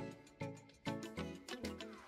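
Background music with a steady beat of short, sharp pitched notes, each fading quickly.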